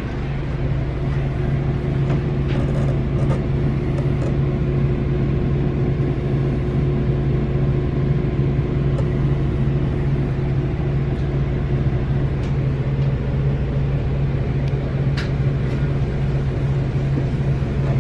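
Diesel locomotive engine running steadily close by, a loud, even low drone.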